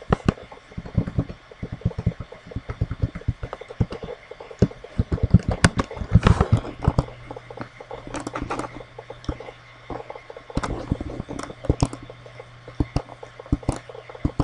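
Computer keyboard keystrokes in irregular runs and mouse clicks as form fields are typed in and dropdowns picked, with a low hum under the second half.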